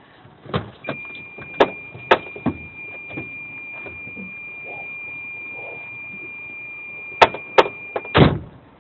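Inside a vehicle cab: scattered clicks and knocks, and a steady high-pitched electronic warning beep held for about seven seconds. Near the end come two sharp clicks and a heavy thump, and the beep cuts off with the thump.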